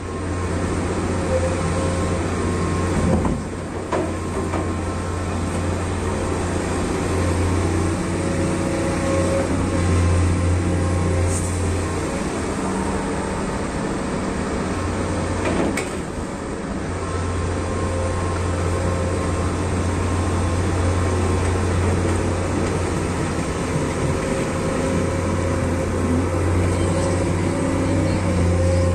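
Large diesel engine of heavy earthmoving equipment running steadily with a deep hum, easing off for a few seconds in the middle before picking up again.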